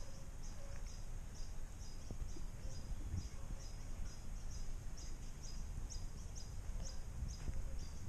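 Outdoor background noise with a low rumble, over which a small animal chirps steadily: a short high chirp repeated about twice a second.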